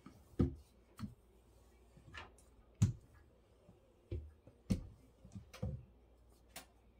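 Handled rolling pin being rolled back and forth over cookie dough on a floured countertop, with irregular light knocks and clacks, about eight of them.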